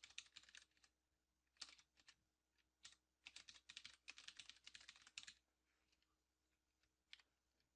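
Faint typing on a computer keyboard, in short runs of keystrokes with pauses between. There is a quick run at the start, a couple of single taps, a longer run from about three to five seconds in, and one last tap near the end.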